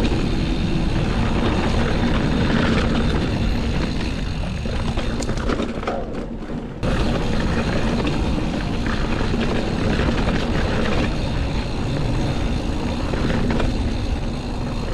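Wind buffeting the camera microphone, with rumbling tyre and trail noise from a hardtail mountain bike being ridden. It breaks off briefly about six to seven seconds in and then carries on.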